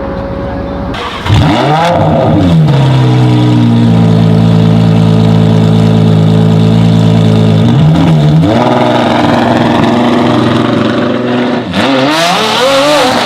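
Supercar engine revving: quick rises and falls in pitch, a few seconds held at one steady engine speed, then more revs climbing again near the end. It starts abruptly about a second in, after a quieter engine hum.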